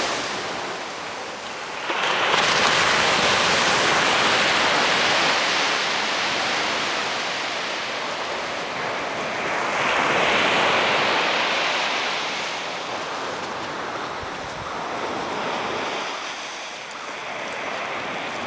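Small ocean waves breaking and washing up a sand beach, a steady hiss that swells about two seconds in and again about ten seconds in, then eases back.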